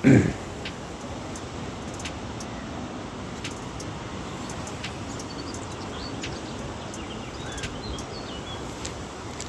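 Steady, even rushing background noise, with faint bird chirps in the second half and a few scattered light clicks.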